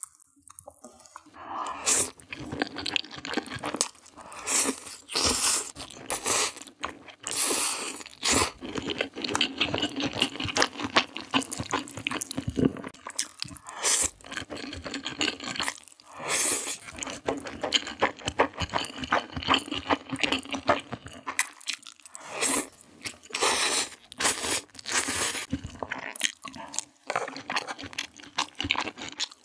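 Close-miked eating: noodles chewed and slurped, with wet mouth clicks and louder bursts every few seconds.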